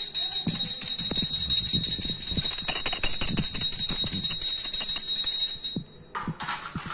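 Small brass pooja hand bell rung rapidly and without a break, as it is during the aarti of a lamp offering, giving a bright, high ringing. The ringing stops suddenly near the end and a brief clatter follows.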